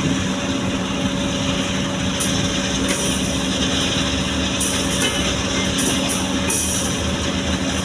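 Komatsu hydraulic excavator's diesel engine running steadily, with several short hissy bursts over it.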